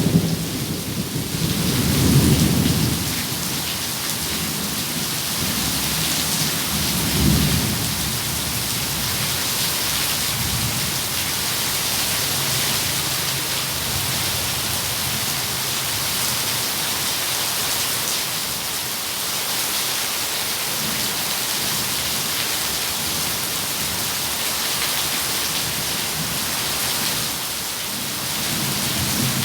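Steady rain falling, with thunder rumbling low beneath it. The loudest rolls come in the first three seconds and again about seven seconds in, with fainter ones later.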